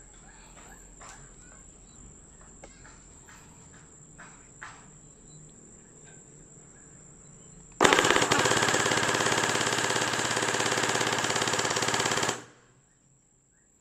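Bing Feng P90 V3 gel blaster firing one full-auto burst about eight seconds in, its electric gearbox cycling at about 16 shots a second. The burst lasts about four and a half seconds and cuts off sharply.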